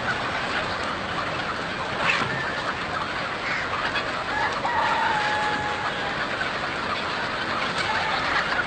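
A large flock of chickens clucking all at once in a dense, overlapping din. One or two long, drawn-out calls stand out around the middle.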